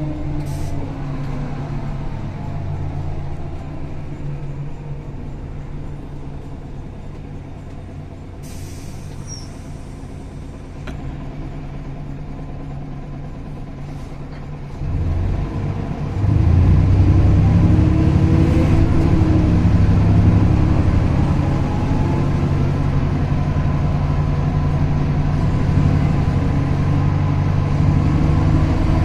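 MAN NL202 CNG city bus running. Its engine fades to a lower, steadier sound with a short hiss of air about eight seconds in, then gets much louder and deeper about fifteen seconds in as it works under load.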